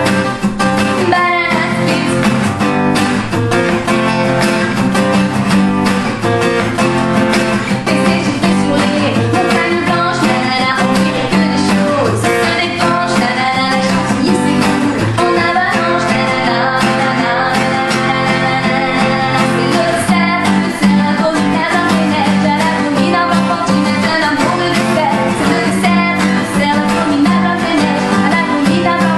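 Acoustic guitar strummed in a steady rhythm while a woman sings along.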